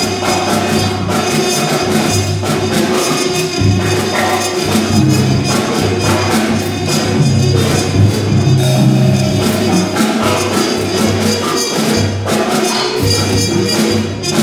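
Free-improvised jazz on drum kit and trumpet: a steady stream of fast strikes on drums and cymbals, with trumpet lines held over them.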